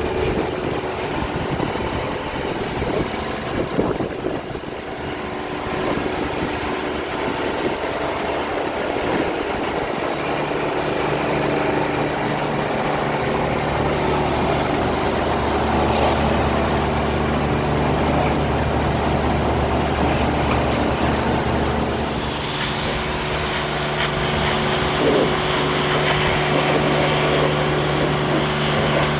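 A motor vehicle's engine running steadily, with a low, even hum that sets in about ten seconds in and changes pitch a little past two-thirds of the way through.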